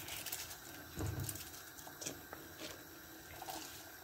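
Keema broth bubbling at a boil in a pot, with light splashing and patter as raw rice is tipped in. Two dull low thumps come at the start and about a second in.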